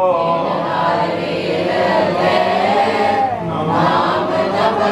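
Gurbani kirtan: voices sing a long, wavering phrase without clear words over a steady low drone.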